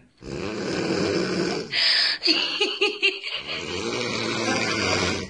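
A young woman snoring loudly in her sleep: a long snore, a short hiss of breath about two seconds in, then another long snore with a fast fluttering rattle.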